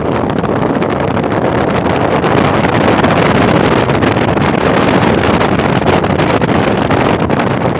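Steady loud rush of wind and road noise from a car moving at highway speed, with wind buffeting the microphone.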